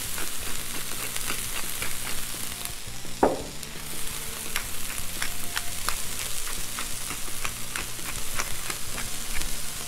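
Frozen sweet corn kernels sizzling in butter and oil on a hot Blackstone flat-top griddle, a steady sizzle with frequent small crackling pops as the moisture cooks off.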